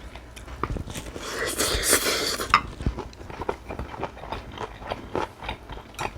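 Close-up chewing and crunching of a mouthful of cockle bibimbap and kimchi, in irregular wet clicks. About a second in there is a louder rushing noise lasting a second and a half.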